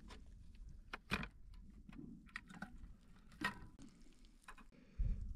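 Scattered light clicks and knocks of objects being handled, a few irregular strikes, with a duller low thump near the end.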